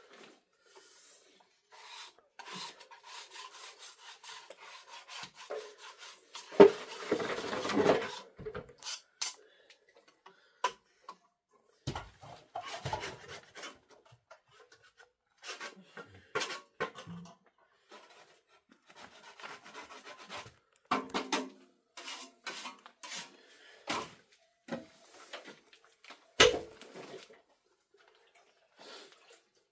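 Mud plaster being worked by hand: scooping and scraping in a metal basin and spreading on a concrete-block wall, heard as scattered scrapes and knocks with a longer scraping stretch about a quarter of the way in.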